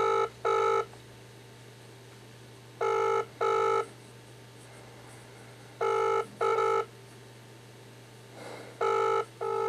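Telephone ringback tone of an outgoing call ringing unanswered. It is the double-ring pattern, two short tones close together, repeated four times about three seconds apart.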